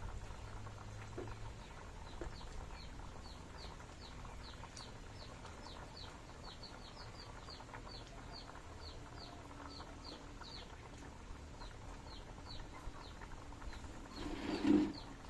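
A bird chirping over and over: short, high, falling chirps, about two or three a second, that die away near the end. A brief, louder, lower sound comes just before the end.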